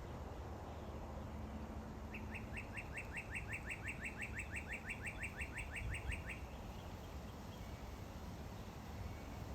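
A bird calling in a fast run of about 25 short, high, downward-sliding notes, roughly six a second, lasting about four seconds, over a steady low background rumble.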